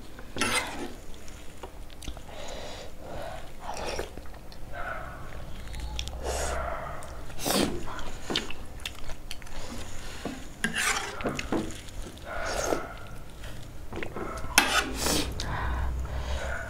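Eating spicy ramen noodles in broth: a run of short slurps and chewing, with a metal spoon and chopsticks clinking and scraping against the plate.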